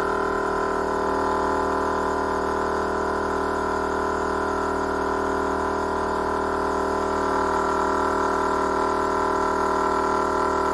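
BullDog Winch 12-volt air compressor running steadily with an even hum, pumping air into four tires to reinflate them.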